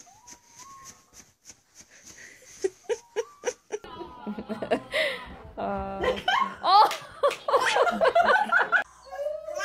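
Laughter in repeated bouts, beginning about four seconds in and growing loud; before it, only faint clicks.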